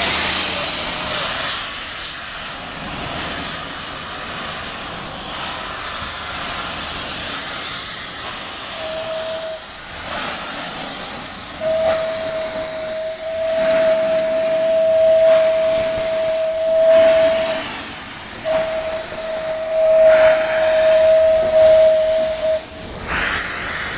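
Indian Railways WP-class 4-6-2 steam locomotive hissing steam from its cylinder drain cocks. Its steam whistle sounds a short toot about nine seconds in, then two long, steady single-note blasts.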